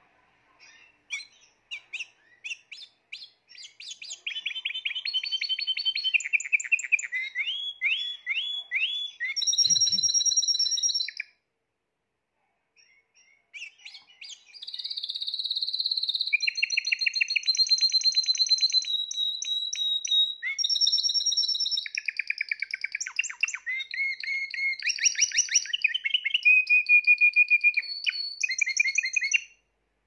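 Spanish Timbrado canary singing: a few scattered chirps, then two long song phrases of rapid trills and held whistled notes, with a break of about two seconds between them.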